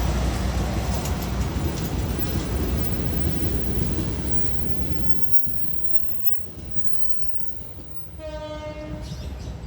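A train passing: the loud rumble of the cars fades away about five seconds in. Near the end comes a single steady horn note, about a second long.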